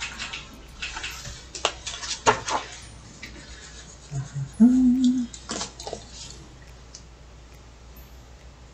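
Clicks and light knocks of a pen and pencils being handled and set down on an open sketchbook, with a short low hum of a voice about halfway through.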